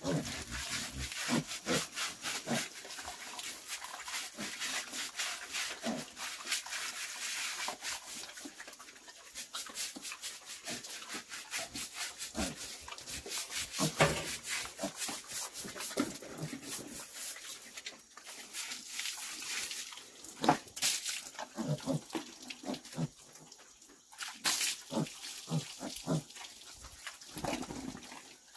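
Stiff plastic scrub brush rubbing over a wet pig's coarse hair in quick repeated strokes, with the pig grunting now and then.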